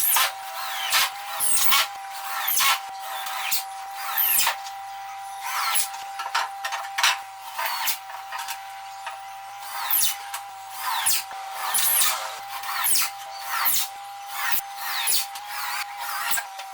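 Power drill working plywood in short repeated bursts, roughly one to two a second, with a steady thin whine underneath.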